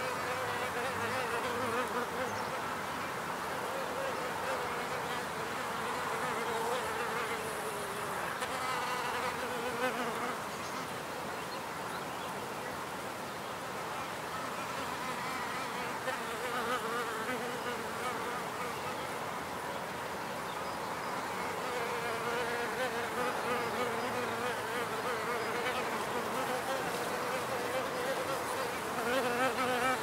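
Wild bees buzzing around their hive, several at once. The wingbeat hum wavers up and down in pitch and swells and fades as individual bees fly close and away.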